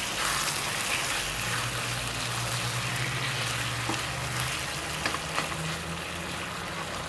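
Floured pork liver slices sizzling as they fry in margarine in a wok, turning caramelized and dry, with a few light clicks about four to five seconds in.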